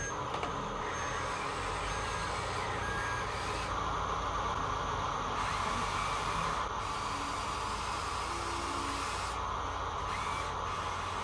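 Radio-controlled Huina model excavators running, their electric motors and gearboxes whirring steadily.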